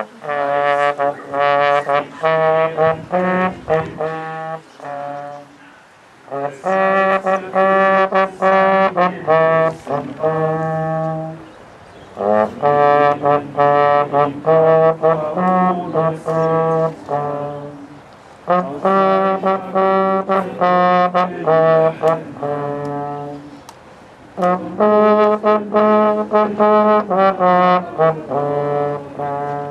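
A brass instrument plays a slow tune in five phrases of about five seconds each, with short breaks between them.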